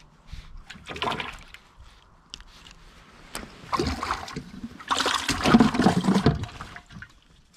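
Water splashing in a plastic bucket as a freshly caught bluegill is dropped in and thrashes, loudest about five to six seconds in, with shorter splashy bursts before it.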